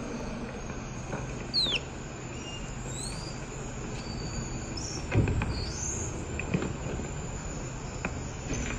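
Plastic baby toys knocking and clattering on a wooden shelf as a white-faced saki monkey handles them, the loudest knock about halfway through. A few short high chirps and whistled glides sound over a steady background hiss.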